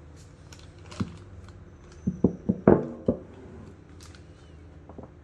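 Hard parts being handled: a single knock about a second in, then a quick run of five clunks, one ringing briefly.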